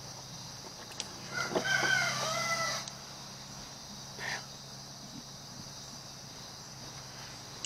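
A rooster crowing once, a single call of about a second and a half.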